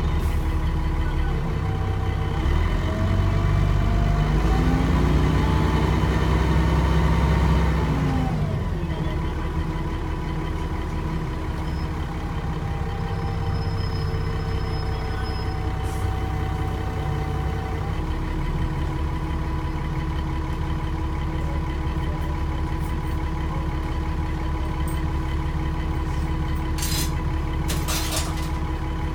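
Dennis Trident 2 double-decker bus's diesel engine, heard from inside the passenger saloon: the engine note climbs steadily under acceleration, falls away sharply about eight seconds in, then runs at a steady lower note. A few sharp clicks come near the end.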